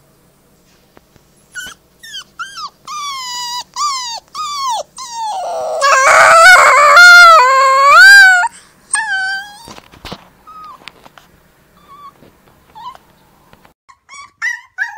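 White wolf pup howling: a run of short falling whimpers, then a long, loud wavering howl in the middle, loud enough to distort, followed by a couple of shorter falling cries. Near the end a second pup starts a falling howl.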